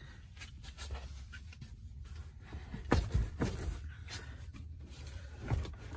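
Handling noises from tugging at a car's leather rear seat bottom cushion to unclip it: scattered light knocks and rubbing, with a louder thump about three seconds in and another near the end.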